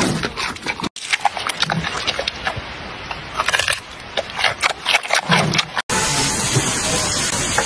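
Giant panda eating close to the microphone, chewing and crunching a raw carrot in irregular crisp bites. A steadier noisy background takes over near the end.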